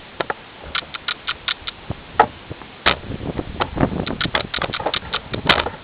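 Homemade breath-powered airsoft gun being fired: a string of short, irregular clicks and pops as BBs are blown out one after another, a few of them louder.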